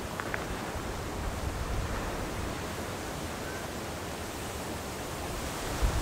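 Steady wash of lake water moving through slush ice along a frozen shoreline, with wind rumbling on the microphone, stronger near the end.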